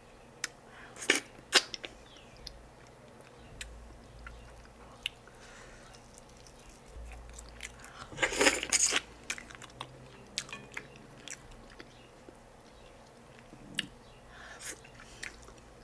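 Close-miked eating sounds of a person eating okra pepper soup by hand: scattered wet mouth clicks and smacks of chewing. About eight seconds in comes a louder, longer burst of wet mouth noise as a handful of slimy, stringy okra goes into the mouth, and a smaller one follows near the end.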